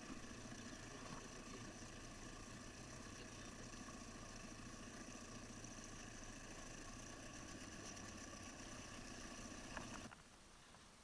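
A faint, steady motor hum that cuts off abruptly near the end, just after a click.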